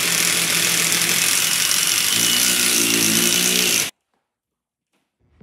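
Cordless drill running at full speed, boring into the wall; a loud, steady whir whose motor pitch rises a little past halfway, then stops abruptly after about four seconds.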